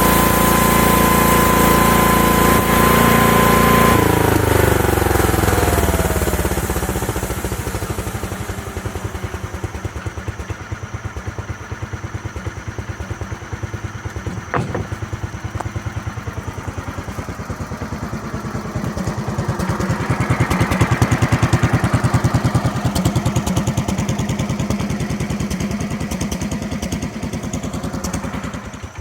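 The home-built sawmill's engine runs at high speed with a steady whine, then winds down over several seconds to a rhythmic idle. There is a single sharp click about halfway through, and a brief swell in loudness about two-thirds through.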